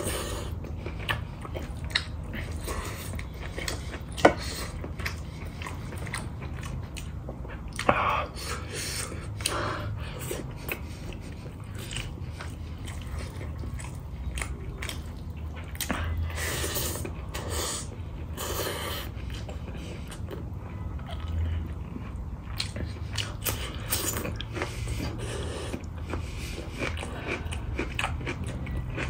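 Close-miked eating: chewing and smacking mouthfuls of pork, mustard greens and rice eaten by hand, with fingers mixing rice on a steel plate. Many small clicks run through it, with one sharp click a little after four seconds in.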